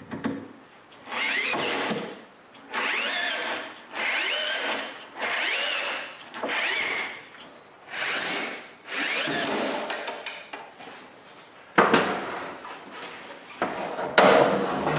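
Power drill running in short bursts, about a second each, its pitch rising and falling as it drills holes in aluminium rails and drives screws into a wooden shelf. Two sharp knocks come later on.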